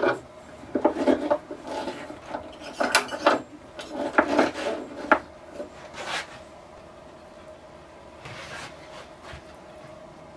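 Pipe clamps being adjusted and tightened on a glued-up wooden tabletop: irregular clicks, knocks and rubs of the metal clamp jaws on the pipes and the wood, stopping about six seconds in.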